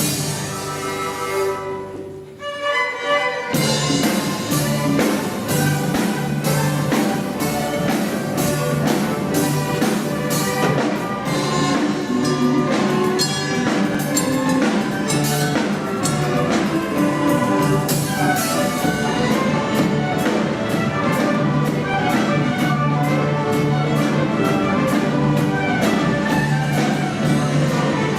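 Youth orchestra playing, with bowed strings over a steady beat. The music drops away briefly about two seconds in, then comes back in full about a second later.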